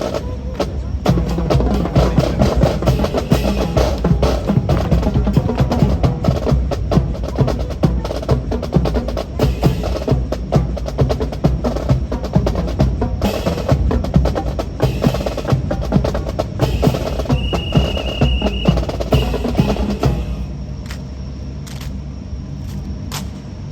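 Fast, dense clatter of drill rifles being slapped, caught and grounded in a fancy rifle drill, sharp wooden and metal knocks in quick succession. A brief high steady tone sounds about seventeen seconds in, and the clatter gives way to a quieter background about twenty seconds in.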